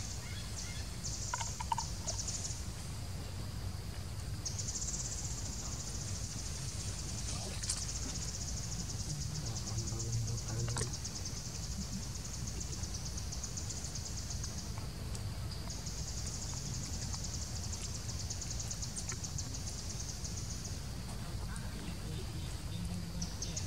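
A high, fast-pulsing insect buzz starts and stops several times. The longest run is from about four to fifteen seconds in, and another follows until about twenty-one seconds. A low steady rumble runs underneath.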